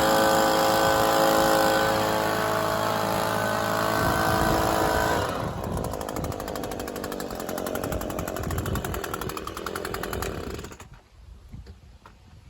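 Toro Recycler lawn mower's small engine running at speed, then dropping to a lower, rapidly pulsing idle about five seconds in, and shutting off suddenly about eleven seconds in.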